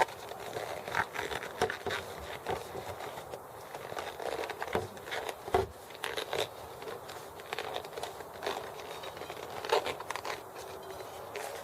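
Bicycle tire being worked onto its rim by hand: irregular rubbing and scuffing of rubber against the rim, with scattered small clicks and knocks.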